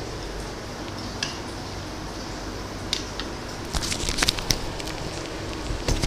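A metal spoon stirring and knocking in a ceramic bowl of stewed tilapia: a few light clinks, most of them in a cluster about four seconds in, over a steady low room hum.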